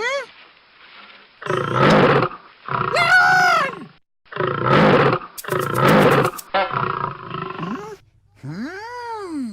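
A lion roaring several times in a row, each roar about a second long, with a voice calling out 'León!'. Near the end comes a single pitched sound that rises and then falls.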